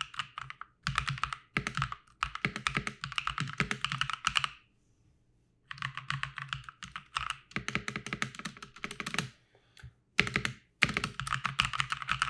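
ASUS ROG Strix Scope II NX mechanical keyboard with linear ROG NX Snow switches being typed on rapidly in bursts, a fairly quiet, dull clacking rather than a sharp click. The typing pauses for about a second near the middle and briefly again near the end.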